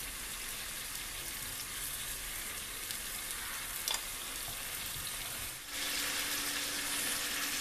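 Duck pieces and sliced onions sizzling steadily in oil in a frying pan; a steady low hum joins in about two-thirds of the way through.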